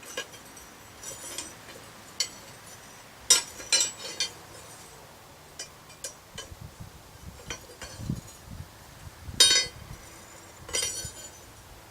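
Steel pieces clinking and knocking against each other at irregular intervals, each knock ringing briefly; two louder clanks, one about a third of the way in and another near the end.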